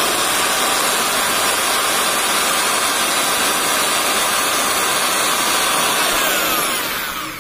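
Electric hand drill running steadily while its bit bores a hole through a plastic pipe; the drill winds down near the end.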